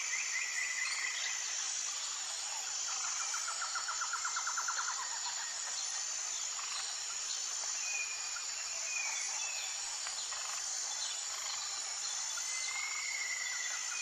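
Natural ambience: a steady, high, pulsing insect chorus with birds calling over it, a rapid trill a few seconds in and short whistled notes later.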